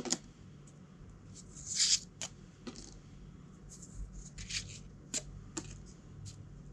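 Thin cardboard game pieces handled by hand, quietly: scattered light clicks and a few brief sliding rustles, loudest about 2 s in, as pieces are lifted off a stack one by one.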